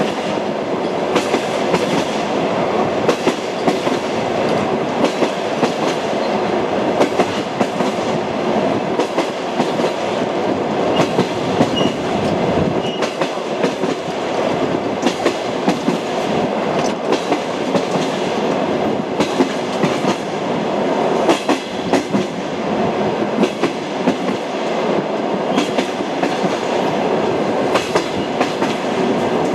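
Train wheels clicking and knocking over rail joints, over a steady rolling rumble of a train running along the track.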